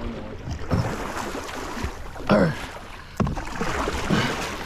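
Canoe moving on a river: water and hull noise with a few low thuds. About two seconds in there is a short, loud call falling in pitch, and a second later a sharp knock.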